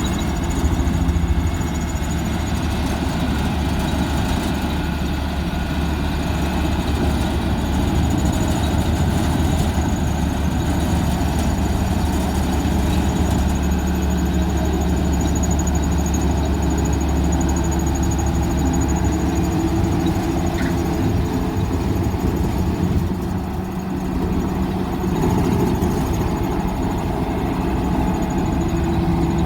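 Diesel engine of a heavy road-construction machine running steadily, with a deep low rumble, dipping briefly about three quarters of the way through.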